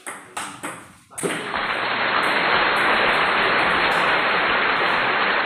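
Table tennis ball hit back and forth: about four quick clicks off paddles and table. About a second in, a loud, steady rushing noise takes over and drowns everything.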